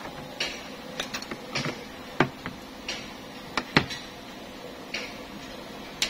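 Irregular light clicks and knocks of hands working the window glass and rubber seal in an Isuzu Forward truck's cab door, with two sharper knocks about two and nearly four seconds in, over a steady low hum.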